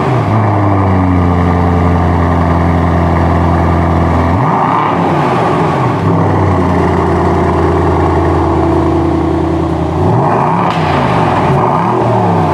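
Mercedes-AMG S63's 4.0-litre twin-turbo V8 running under load. It holds long steady pulls, with its pitch dropping and rising quickly about four seconds in and several times near the end.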